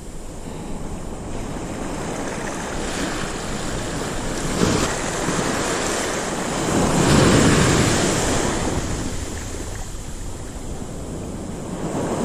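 Small ocean surf breaking and washing up the sand, with the wash swelling to its loudest as a wave breaks about seven seconds in.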